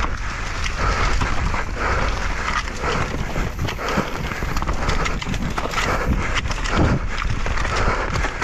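Downhill mountain bike ridden fast over rough ground: a continuous rattle of irregular knocks and clatter over a low rumble of wind and tyre noise.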